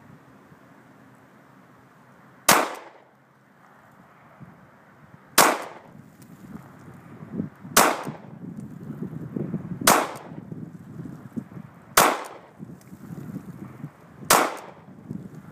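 Sig Sauer P226 9mm pistol fired six times in slow, deliberate single shots, one every two to three seconds.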